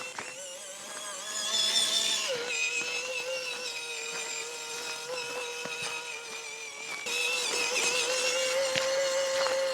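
Small RC crawler's electric motor and gearbox whining steadily as it drives, the pitch and loudness stepping with the throttle, with a few light knocks from the chassis.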